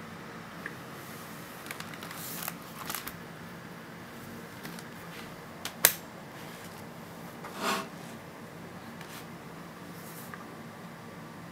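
Steady low hum of room tone with a handful of small clicks and knocks scattered through it; a sharp click about six seconds in is the loudest, and a brief rasp follows near eight seconds.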